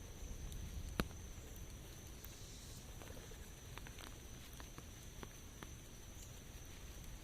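Light rain falling, a faint steady patter with scattered single drops ticking, one sharper drip about a second in.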